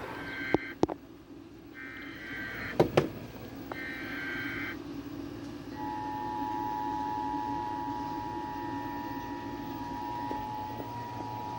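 Emergency Alert System tones opening a National Weather Service tornado warning. First come three short bursts of SAME header data, each about a second long, with a few sharp clicks among them. Then, about halfway in, the steady two-tone EAS attention signal starts and holds.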